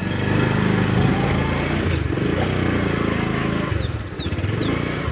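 Motorcycle engine running steadily while riding, its note dipping briefly twice as the throttle eases. Three short high falling chirps sound near the end.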